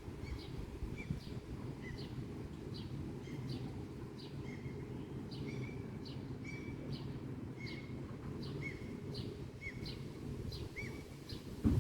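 A small bird calling over and over, short chirps about twice a second, over a steady low rumble.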